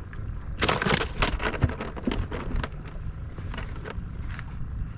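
Fishing gear being handled: a rapid run of clicks and rustles from about half a second to nearly three seconds in, then a few scattered clicks, over a low steady rumble.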